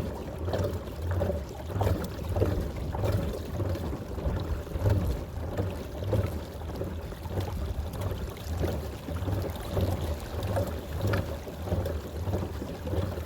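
A Bonafide P127 pedal-drive kayak under way: water trickles and splashes along the hull, over a low, even pulse about twice a second.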